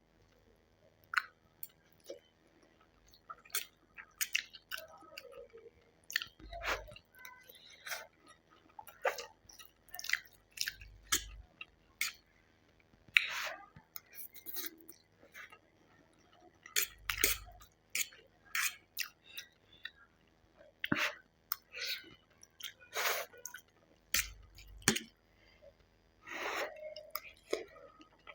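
Close-miked chewing of Maggi instant noodles: irregular wet mouth clicks and smacks, with a few soft low thumps every several seconds.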